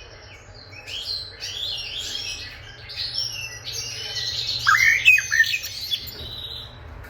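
Common blackbird singing a varied, twittering song of quick phrases, loudest about five seconds in where a few notes sweep down in pitch.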